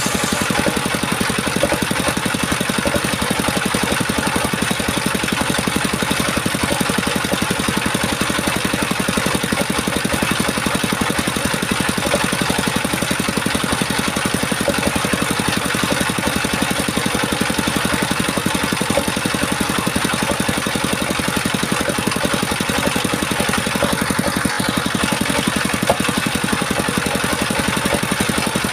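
A small petrol engine running steadily at an even, unloaded speed, with one sharp click about 26 seconds in.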